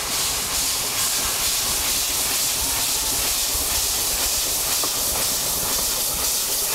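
Real 0-4-0 steam locomotive approaching, with a loud, steady hiss of steam venting from its cylinders.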